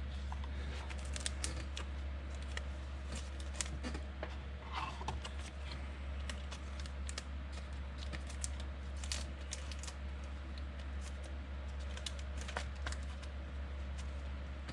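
Trading cards being handled: scattered faint clicks and light taps over a steady low hum.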